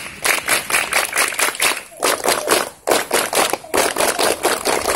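A group of children clapping hands together in a fast, even rhythm, broken by a couple of short pauses.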